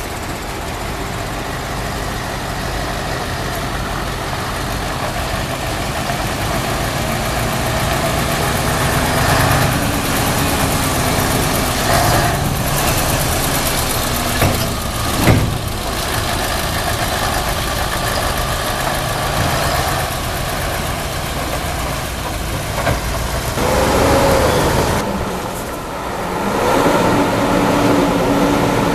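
Diesel engines of heavy Mercedes-Benz tipper trucks (a 3538 and a 4148) running as the trucks drive past at low speed, with a sharp knock about halfway through and the engine note rising and falling near the end.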